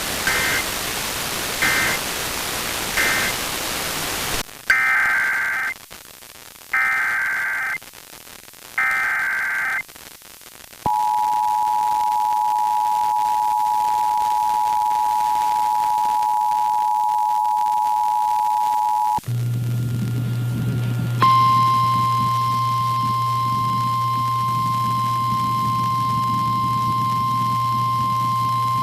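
Emergency Alert System tones. First come three short end-of-message data bursts over radio static. Then come three longer SAME header data bursts and the two-tone EAS attention signal, held steady for about eight seconds. After a short hum, the single steady NOAA Weather Radio warning alarm tone plays over mains hum.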